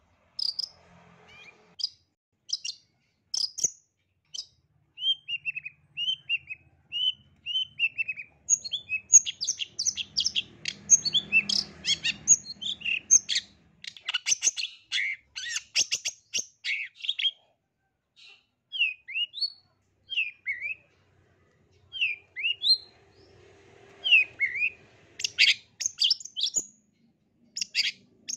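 Long-tailed shrike (cendet) singing a varied song: sharp high chirps, runs of short downward-slurred whistles, and a dense, rapid chattering passage in the middle.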